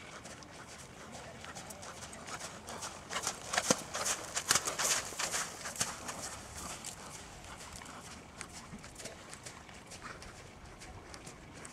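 Horse's hooves striking arena footing at a trot, a run of repeated dull thuds, loudest a few seconds in as the horse passes close.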